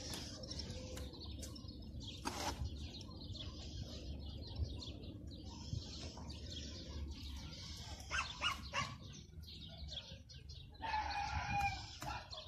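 A rooster crows once near the end, a held call of about a second. Underneath runs a low wind rumble, with a few sharp knocks of stones being handled on a stone wall.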